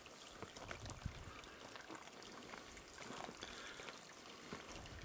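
Faint footsteps crunching and rustling through dry brush and leaves, with scattered irregular crackles.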